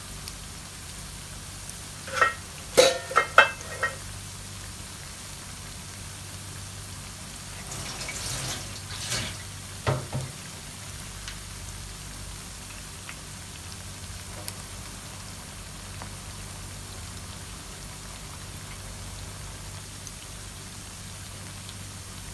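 Oil sizzling and bubbling steadily around onion pakoda frying in a shallow black frying pan. It is broken by a few sharp, louder sounds about two to four seconds in and again around eight to ten seconds in.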